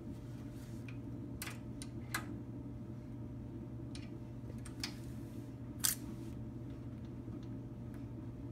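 Metal hand tools clicking and tapping against the rocker-arm valve adjusters of an air-cooled VW engine while the valve lash is set with a screwdriver and wrench. There are a handful of separate sharp clicks, the loudest about six seconds in, over a steady low hum.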